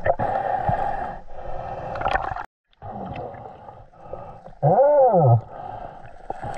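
Muffled underwater sound of a snorkeler swimming in a river, picked up by a camera held under the water. About five seconds in, a short voice-like groan that rises and then falls in pitch.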